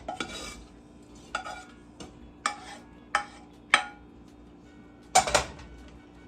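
A kitchen utensil knocking and scraping against a bowl and pot while shredded chicken is moved into the soup: a string of sharp, separate clinks, the loudest a quick double knock about five seconds in.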